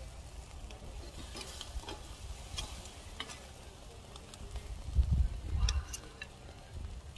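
Steak sizzling and crackling on a charcoal grill, with scattered sharp clicks of metal tongs. A louder low thump comes about five seconds in.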